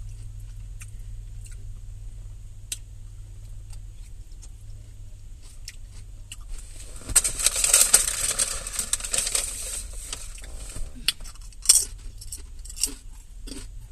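Close-up chewing of a crisp romaine and kale salad: scattered small crunches and clicks, then a dense spell of crunching about seven seconds in that lasts a few seconds. A steady low hum runs underneath.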